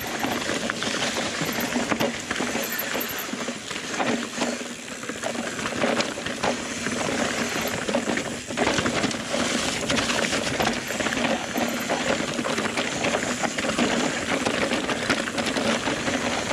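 Mountain bike ridden fast down a rocky trail: a steady rush of tyre and wind noise, with constant rattling and irregular knocks as the bike hammers over rocks.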